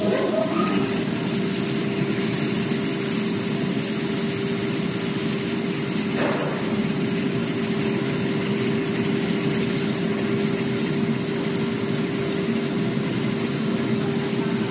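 CNC wire saw cutting machine for corrugated board starting abruptly and then running steadily: a loud mechanical noise with a constant hum tone.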